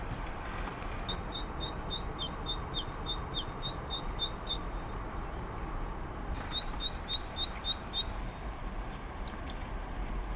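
Zitting cisticola song: a quick series of short, high 'hi-hi-hi' notes at about four a second, one run then a second shorter run after a pause. Two sharp clicking notes come near the end, over a steady hiss of rain.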